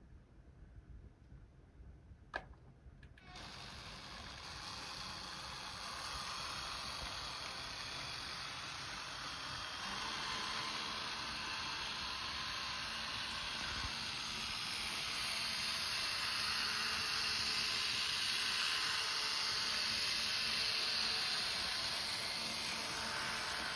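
Märklin Z-scale model train running on the track: a steady whirring hiss of the tiny motor and wheels that grows louder as the train comes near. A single sharp click sounds about two seconds in, just before the running sound sets in.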